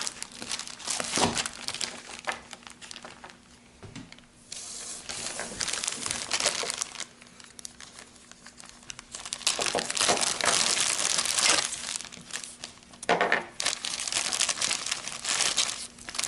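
Plastic packaging crinkling and tearing as it is handled and opened, in four bursts with short pauses between them.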